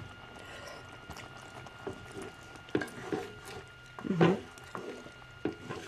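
A person chewing a bite of vegan meat substitute: soft wet mouth clicks, with a short hummed sound about four seconds in. A faint steady high whine runs underneath.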